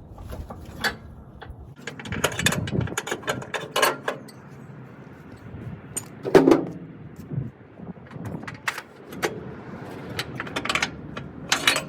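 Irregular metallic clicks, clanks and rattles of gear being handled, with a heavier clunk about six and a half seconds in.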